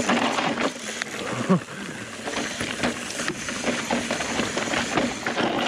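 Mountain bike clattering down a rocky trail: irregular knocks and rattles from the tyres and bike over rocks, over a steady rush of wind on the action-camera microphone.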